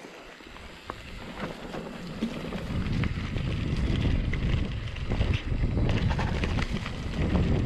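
Mountain bike rolling along a dirt trail, with wind buffeting the microphone and the bike's tyres and frame rattling and clicking over bumps; the rumble grows louder over the first few seconds as it picks up speed.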